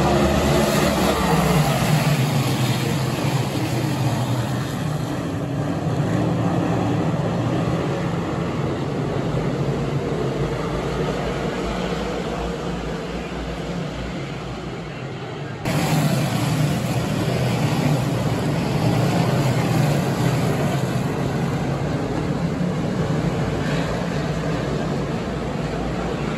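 Big Block Modified race cars' big-block V8 engines running at racing speed on a dirt oval, their pitch rising and falling as the field goes by. About 15 seconds in, the sound cuts suddenly to louder engine noise.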